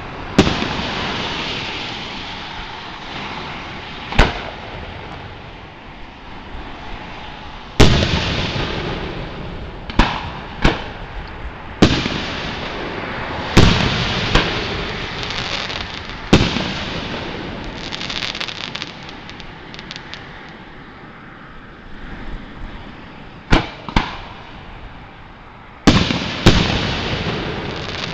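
Aerial fireworks shells bursting overhead: about a dozen sharp booms at irregular intervals, some in quick pairs, each trailing off in a fading echo. A patch of rapid crackling comes about two-thirds of the way through.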